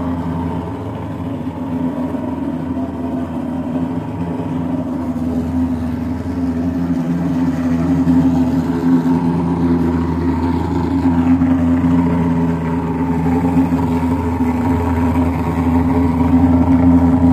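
Thermal fogging machine spraying mosquito insecticide fog. Its engine runs with a steady drone that grows somewhat louder in the second half.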